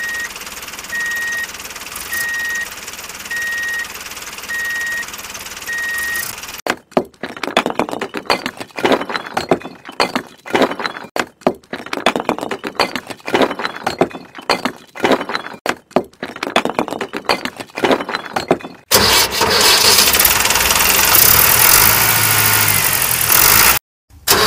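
Steady engine-like noise with a high beep repeating about every 0.7 seconds, which stops about six seconds in. Then a long run of small hard clicks and clacks as toy bricks are stacked onto a toy tractor's trailer, and for about the last five seconds a loud engine-like noise that cuts off suddenly.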